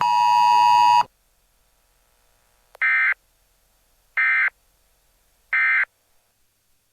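A loud steady electronic alert tone cuts off about a second in, followed by three short, identical warbling data bursts about a second and a half apart: the SAME end-of-message code that closes a NOAA Weather Radio / EAS alert.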